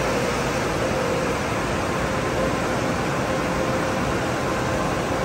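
Automatic tunnel car wash equipment running: a steady rushing noise with a faint steady hum under it.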